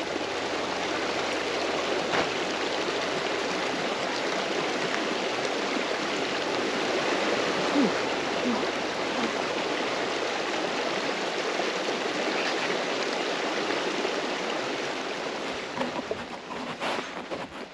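Shallow, rocky mountain river running steadily: an even rush of flowing water over stones, which drops away near the end.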